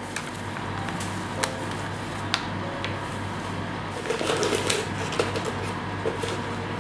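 Plastic ingredient bags crinkling as sugar and flour are poured into a stainless steel mixing bowl on a kitchen scale, with a couple of light clicks. The crinkling is busiest about four to five seconds in.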